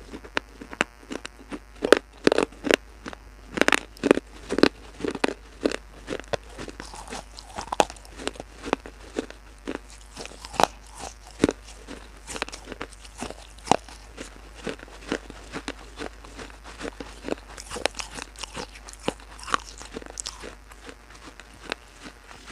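Close-miked biting and chewing of brittle pieces of baked clay pot, with many sharp, irregular crunches. The crunches are loudest and most frequent a few seconds in, then settle into steadier chewing.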